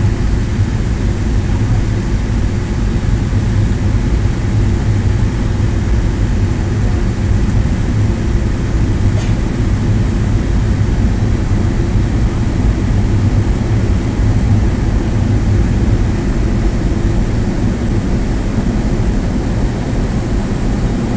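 Steady cabin noise of a McDonnell Douglas DC-9-51 in the climb after takeoff, heard from a front-row seat: a low, even rumble of airflow and its rear-mounted Pratt & Whitney JT8D engines, with a faint high steady whine above it.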